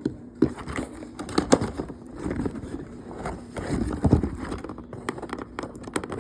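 Irregular knocks, rustles and crackles of a plastic toy and its taped cardboard packaging being handled and pulled apart.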